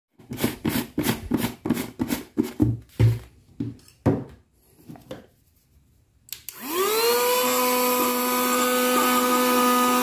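A run of short crunching crackles as brittle white shell fragments are broken up by hand, then a click about six seconds in as a portable mini handheld vacuum cleaner (2-in-1 home and car, type YTM2037) switches on. Its motor whine rises quickly and settles into a steady, high whine with several tones while the nozzle sucks up the fragments.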